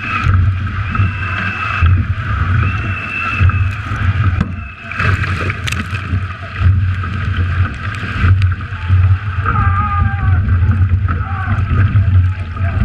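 Racing eight moving fast through the water: water rushing and splashing along the hull at the bow, with low buffeting that pulses about once a second.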